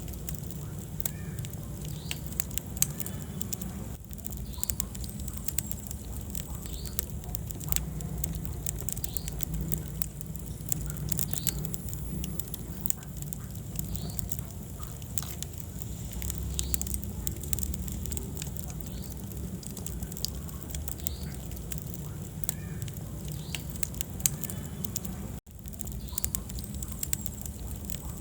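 Wood fire burning in a fireplace: a steady low rumble of flames with frequent sharp crackles and pops of burning logs. The sound drops out for a split second near the end.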